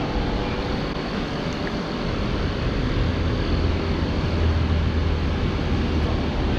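A car engine running steadily, with a deep low rumble coming in about two seconds in and holding.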